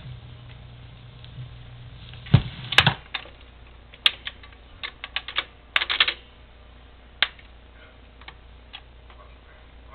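Garrard automatic record changer cycling at the end of a record: an irregular run of mechanical clicks and clunks as the tonearm lifts from the run-out groove and swings back to its rest.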